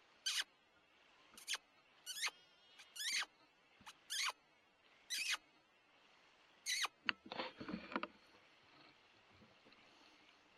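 A series of seven short, high-pitched squeaks, each falling steeply in pitch, spaced about a second apart; about seven seconds in they give way to a brief burst of rustling and knocks.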